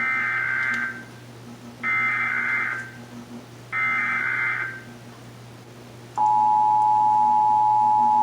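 Emergency Alert System SAME header: three bursts of screechy digital data tones, each about a second long with about a second between them, encoding the alert as a Required Monthly Test. About six seconds in, the steady two-tone EAS attention signal begins.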